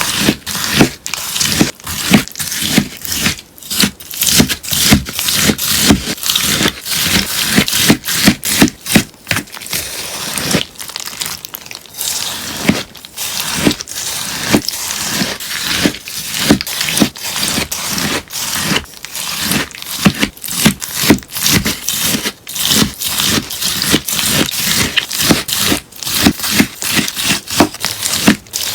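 Melamine sponge being cut in a steady run of crisp, crunchy cuts, roughly two a second.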